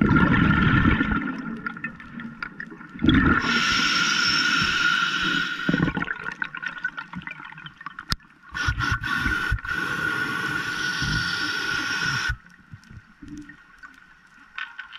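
A spearfisher breathing through a snorkel, heard from an underwater camera: rushing, gurgling breaths in four surges of two to four seconds each, the last starting near the end.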